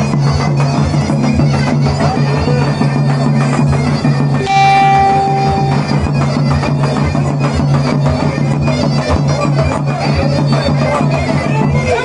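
Zurna and davul playing a fast horon dance tune: a reedy, piercing shawm melody over quick drum strokes. About four and a half seconds in, the zurna holds one clear high note for a little over a second.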